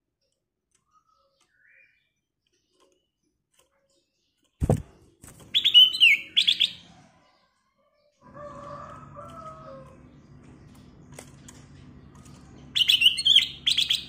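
Caged kutilang emas (black-crested bulbul) singing two short, clear, bright phrases, about five and a half seconds in and again near the end. A sharp knock comes just before the first phrase, and a low steady hum sets in about eight seconds in.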